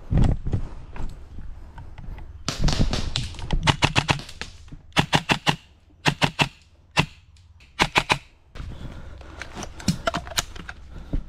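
Airsoft rifle firing several short rapid bursts of sharp clicky shots, spread between about four and eight seconds in. A dull thump comes right at the start.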